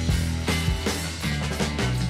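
Background rock music with drums, bass and guitar, keeping a steady beat.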